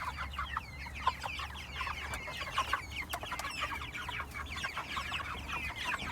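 A flock of young broiler chickens, close to harvest size, peeping and clucking in a continuous, overlapping chatter of short high calls.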